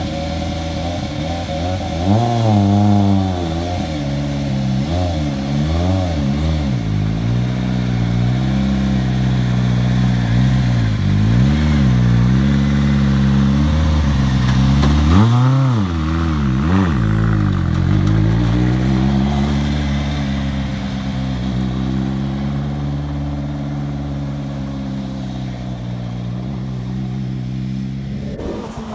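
Citroën C3 WRC rally car's 1.6-litre turbocharged four-cylinder engine at low speed, the revs blipped up and down again and again. In the second half it runs steadier and slowly fades.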